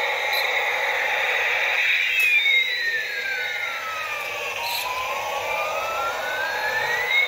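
Battery-operated toy helicopter running with its electronic sound effects on: a steady hiss-like engine noise, with a siren tone that slowly falls and then rises again over about five seconds.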